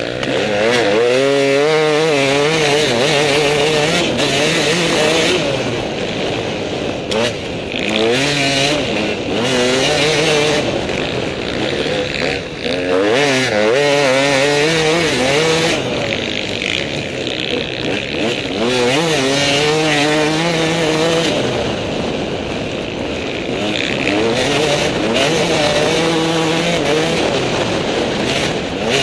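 Two-stroke enduro dirt bike at full throttle, revving up and falling back again and again as the rider accelerates, shifts and brakes along the trail. Wind rushes across the microphone.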